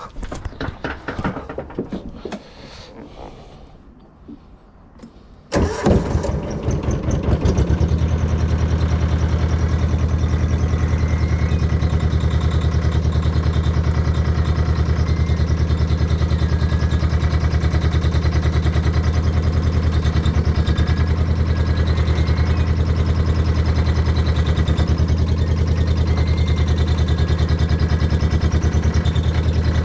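A few knocks and handling noises, then about five and a half seconds in a mini excavator's engine is started, catches within a couple of seconds and settles into a steady idle.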